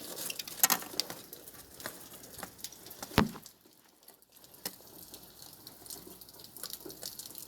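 Rain pattering, with scattered drop clicks over a faint steady hiss, and one louder knock about three seconds in.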